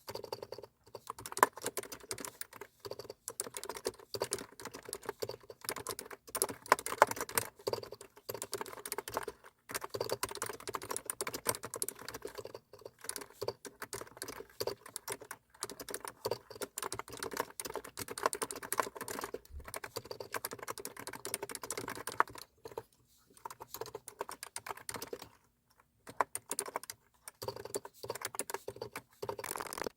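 Typing on a computer keyboard: a fast, irregular run of key clicks with a few short pauses.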